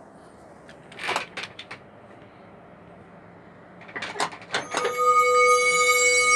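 A few sharp clicks and knocks about a second in and again about four seconds in, then a held electronic chord with a rising shimmer above it starts about five seconds in from a studio monitor speaker: the backing track of a Punjabi Christian song beginning to play.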